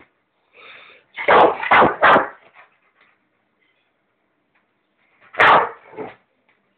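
Large black dog barking: three loud barks in quick succession about a second in, then two more near the end.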